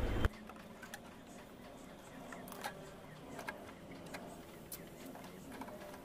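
Faint, scattered light clicks and metal taps from a window air conditioner's panels, parts and screws being handled and refitted.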